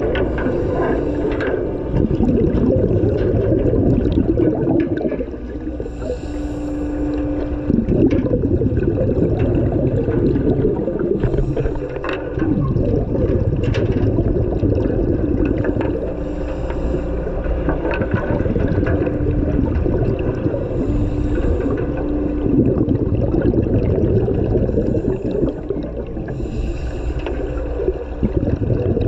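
Underwater sound in a shark cage: a steady low rush of water. About every four to five seconds it is broken by a diver's regulator breath, a brief hiss and hum, followed by gurgling exhaled bubbles.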